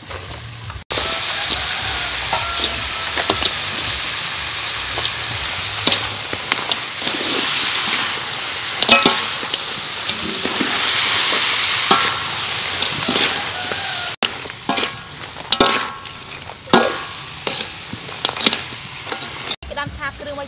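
Small whole crabs sizzling in a hot wok with a spice paste, a metal spoon clinking and scraping against the wok as they are stirred. The sizzle is loud through most of it; near the end it drops and the spoon's clinks stand out.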